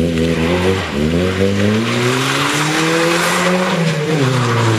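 Rally car's engine revving hard as the car slides through a turn on loose dirt, its pitch jumping up at the start, climbing steadily, then dipping about four seconds in before rising again. A hiss of dirt and gravel under the sliding tyres runs beneath it, strongest in the middle.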